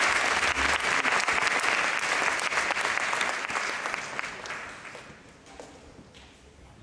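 Audience applauding, the clapping dying away over about four to five seconds.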